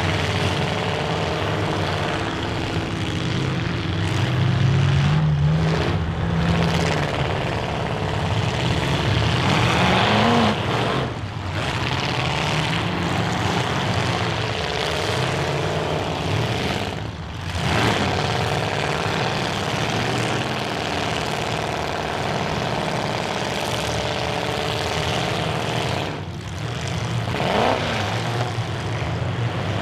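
Several full-size demolition derby cars' engines running together and revving hard, the pitch climbing and dropping again and again as the cars accelerate across the dirt arena.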